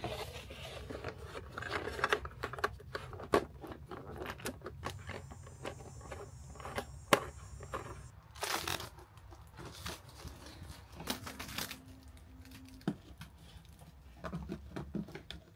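Handling noises while setting up equipment: scattered clicks, knocks and rustling, with a longer rushing hiss about eight and a half seconds in, over a faint steady low hum.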